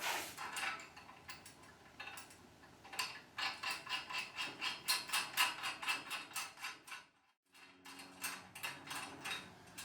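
Quick runs of metallic clicks, several a second, as large nuts are wound onto the steel U-bolt of the chainsaw mill's clamp and tightened. The sound drops out briefly about seven seconds in.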